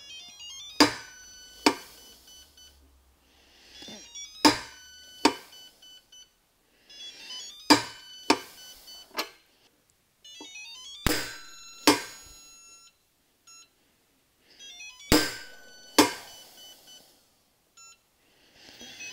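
Capri half-inch click-type torque wrench clicking as it is pulled to its setting on a CDI digital torque tester, about five pulls with two sharp clicks each, roughly a second apart. Electronic beeps from the tester sound with each pull.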